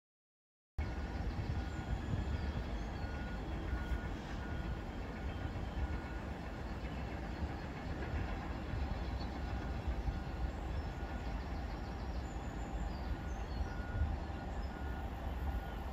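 GB Railfreight Class 66 diesel locomotive (two-stroke V12) on a freight train, heard from a distance as it approaches: a steady low engine rumble that starts suddenly about a second in.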